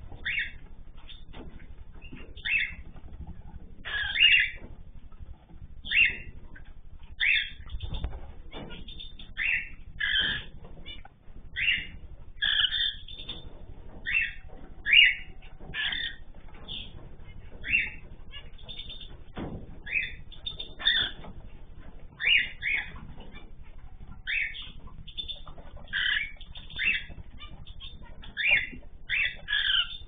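Cockatiels giving short, loud calls over and over, about one every second or two.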